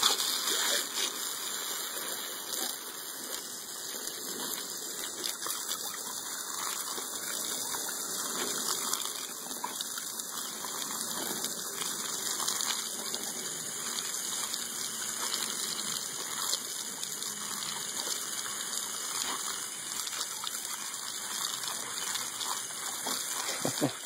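Garden hose spraying water in a steady rush.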